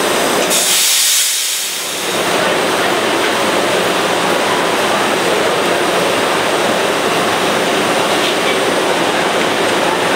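MBTA Green Line light rail train of Type-7 and Type-8 cars standing at the platform. A loud hiss comes about half a second in and lasts over a second, then the train and platform keep up a steady noise as the doors close.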